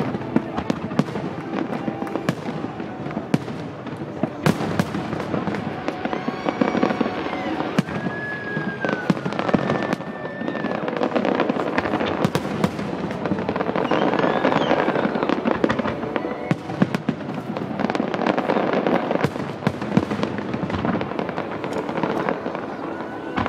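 Fireworks going off continuously: a dense stream of bangs and crackling, with music playing underneath.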